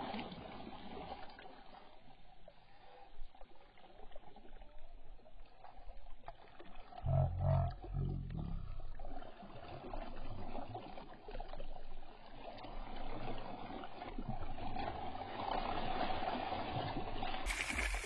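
Shallow water splashing and sloshing as a hooked snakehead (murrel) is dragged thrashing through the shallows and boots wade through the water. A louder low rumble lasts about two seconds, about seven seconds in.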